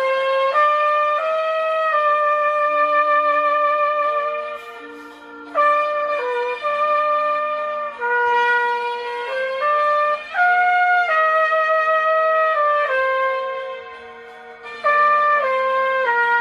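Trumpet playing a slow melody of long held notes, with two short pauses between phrases, over a quieter sustained accompaniment.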